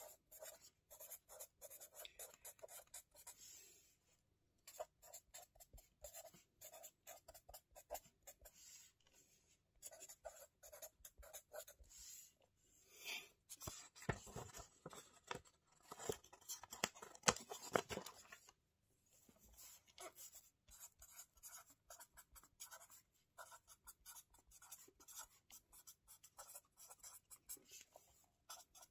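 Pen scratching on the paper of a spiral-bound notebook in quick short strokes. About halfway through the pages are riffled and flipped for several seconds, louder than the writing, then the pen goes back to writing.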